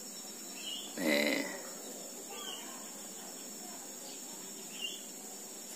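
A brief vocal sound about a second in. After it comes a steady, faint, high-pitched hiss or chirring, with a couple of faint short chirps.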